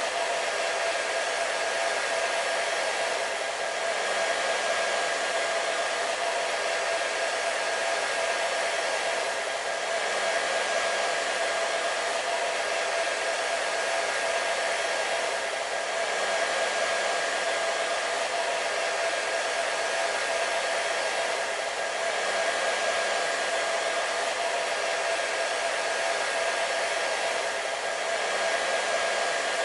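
Hair dryer running continuously: a steady rush of blown air with a constant motor whine, swelling slightly about every six seconds.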